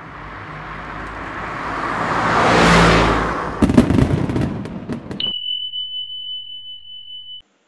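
Intro sound effects: a rising whoosh that builds for about three seconds, then a crackling burst with sharp clicks, then a steady high beep held for about two seconds that cuts off shortly before the end.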